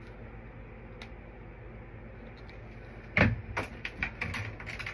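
Hair-styling items being handled and set down: after quiet room tone, a thump about three seconds in, then a quick run of clicks and taps, as the gel bottle is put aside and the edge brush picked up.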